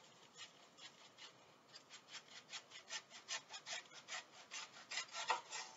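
Kitchen knife slicing through a very firm red onion on a cutting board: a quick series of short cutting strokes, coming faster and louder toward the end.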